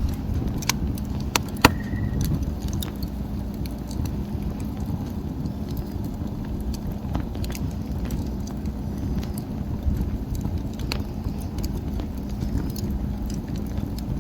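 Wood fire burning: irregular sharp crackles and pops over a steady low rumble, the loudest pops coming right at the start and about a second and a half in.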